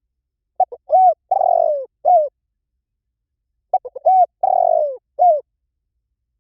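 Spotted dove cooing: two identical call phrases about three seconds apart. Each phrase is a couple of short coos, a longer coo that falls in pitch, and a last short coo.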